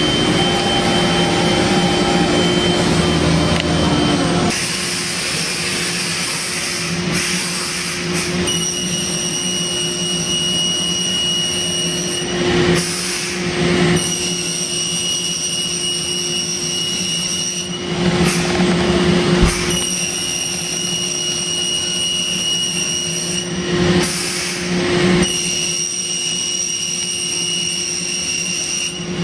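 Thermwood five-axis CNC router running: a steady high-pitched spindle whine over a machine hum, with stretches of louder, rougher noise every few seconds as the cutter works the part and the head repositions.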